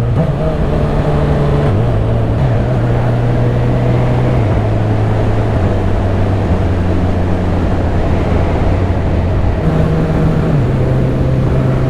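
2018 Honda CB1000R's inline-four engine running under way over wind noise. Its pitch steps up and down several times as gears are changed with the quick shifter.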